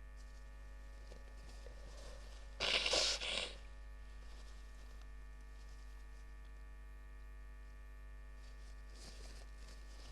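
One sneeze, about a second long, a little under three seconds in, over a steady electrical hum.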